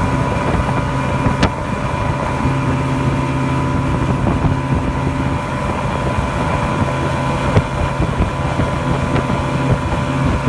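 Mercury 175 outboard motor on a Nitro 290 Sport boat running at a steady speed, with wind buffeting the microphone.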